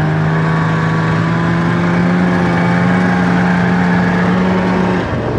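Snowmobile engine running at a steady speed over a rushing noise, its pitch nearly constant; the engine tone drops away near the end.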